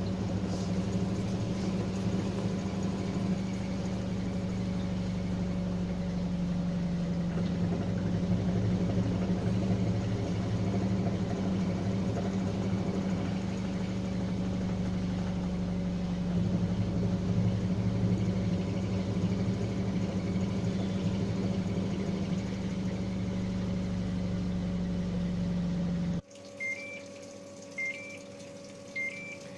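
LG T7270TDDL top-loading washing machine spinning in silent mode, a steady low motor-and-drum hum. It cuts off suddenly near the end, and the machine sounds a repeated electronic beep, its alert that the last rinse is done and fabric softener can be added.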